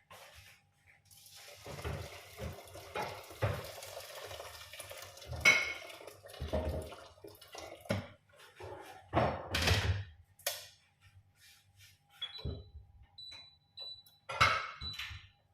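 Hot water poured into a pot of washed black rice for about three seconds, followed by several clunks and clatters of pots and utensils being handled.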